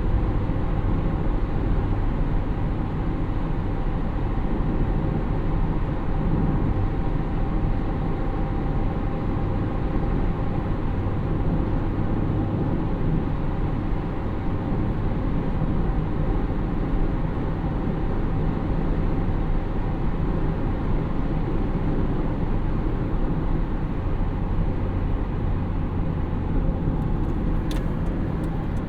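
A car running steadily, a continuous low engine and road rumble that holds even throughout. A few sharp clicks come near the end.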